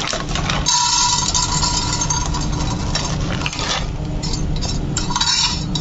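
Dry muskmelon seeds poured from a plastic packet into an empty nonstick frying pan, scattering over the pan's surface, over a steady low hum.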